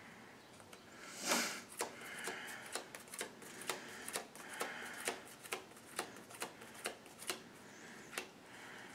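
A deck of trading cards being shuffled by hand: a run of sharp card snaps about twice a second, the loudest about a second in.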